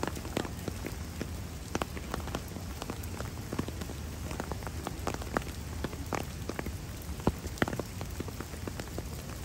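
Rain falling and dripping: irregular sharp drops tapping on nearby surfaces, several a second, over a steady hiss.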